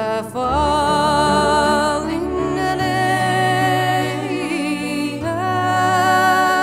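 Slow background music: a voice singing long, wavering held notes over a sustained low chord.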